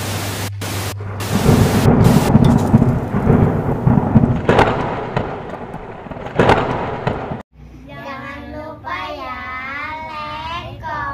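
Television static hiss, then a thunder sound effect: heavy rumbling with two sharp cracks, cut off suddenly. Then children singing together.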